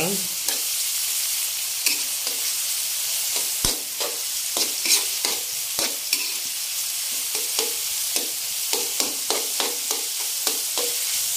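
Chopped garlic, onion, tomato and ginger sizzling in hot oil in a metal wok, with a steady hiss, while a spatula stirs them, scraping and tapping against the pan in short, irregular strokes.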